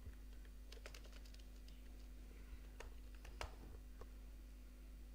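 Faint, scattered keystrokes on a computer keyboard as a line of text is typed, over a low steady hum.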